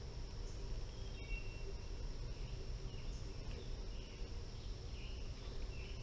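Outdoor creek ambience: a steady high-pitched insect drone with scattered short bird chirps over a low, steady rumble.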